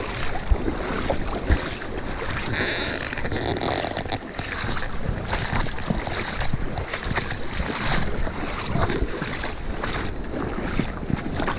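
Fast mountain river water rushing and splashing over stones, a steady noise with scattered splashes, and wind buffeting the microphone.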